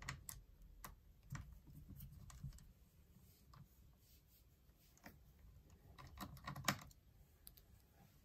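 Faint, scattered small clicks and taps of tools and plastic laptop parts being handled during disassembly, with a denser cluster about six to seven seconds in.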